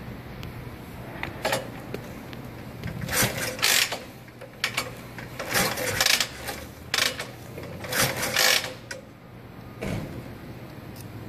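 Kick starter of a 1940 Harley-Davidson UA's flathead V-twin being kicked over again and again: mechanical clunks and ratcheting about every second or so. The engine turns over but does not catch and run.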